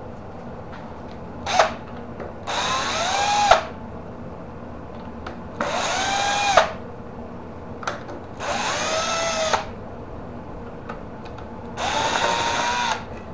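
Ridgid cordless drill driving screws into an electric scooter's rear deck and fender mount: a short blip, then four runs of about a second each, the motor's pitch rising as it spins up on each one.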